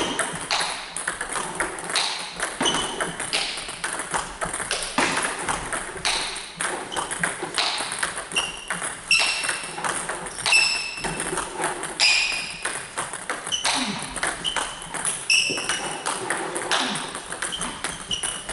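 Table tennis multiball drill: a steady run of sharp clicks as balls are fed one after another and returned with backhand chop strokes. Bat hits mix with bounces on the table and floor, and many hits carry a short ringing ping.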